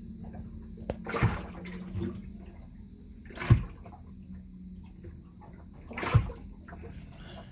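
Water sloshing and splashing in a boat's bilge, three times, a couple of seconds apart, over a steady low hum.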